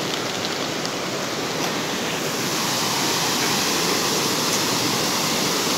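River water rushing steadily over rocks in a small waterfall, a continuous roar of white water.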